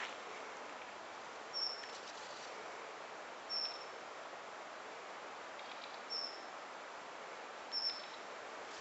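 A small bird calling: four short, high chirps about two seconds apart over a steady background hiss.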